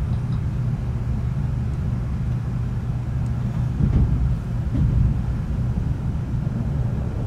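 Steady low rumble of a Shinkansen bullet train running, heard from inside the passenger cabin.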